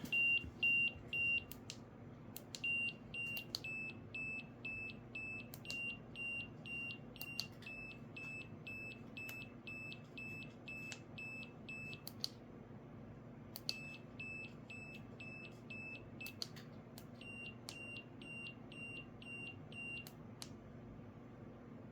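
Wireless bicycle turn signal's beeper sounding a quick run of short, high, same-pitched beeps, about two a second, in time with the flashing indicator. The beeping pauses briefly a few times and stops about 20 seconds in.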